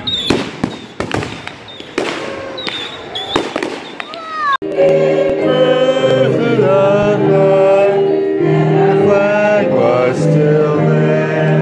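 Fireworks going off: sharp bangs and crackles with several whistles gliding in pitch. About four and a half seconds in they cut off suddenly and louder music with singing voices takes over.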